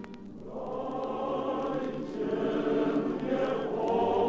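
A choir singing slow, held chords as background music, swelling in phrases.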